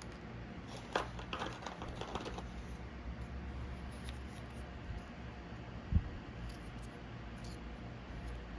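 Light clicks and rustling of cardboard standees and their plastic stands being picked up and handled, mostly in the first few seconds. A soft thump about six seconds in, over a steady low hum.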